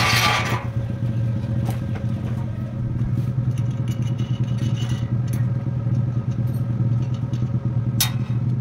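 A steady low mechanical hum, like a motor running, with a short burst of hiss at the start and a couple of light metal clicks.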